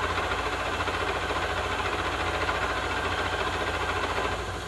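Vertical milling machine cutter taking a heavier cut in low-carbon steel: a steady mechanical run over the spindle motor, with a fast even low pulsing, dropping away at the very end as the pass finishes.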